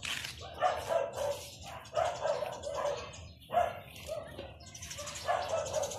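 Dog barking repeatedly, short barks in runs of two or three.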